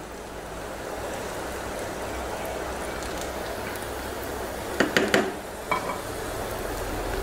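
Finely chopped shallots sizzling in hot oil in a small steel pan as they are fried brown. There are a few brief knocks about five seconds in.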